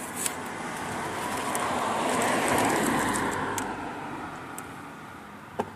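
A car passing by: road and engine noise swells to a peak about halfway through and fades away. A few light clicks, with a sharper tick near the end.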